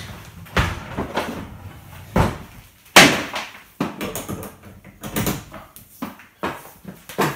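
A series of irregular knocks and bumps from objects being handled, the loudest a sharp knock about three seconds in.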